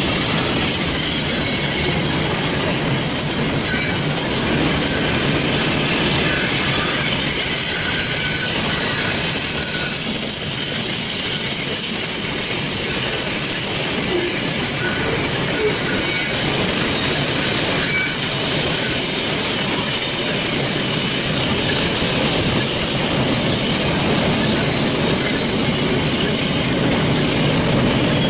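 Loaded covered hopper cars of a long potash freight train rolling by on a curve: a steady rumble of wheels on rail, with faint high wheel squeal coming and going.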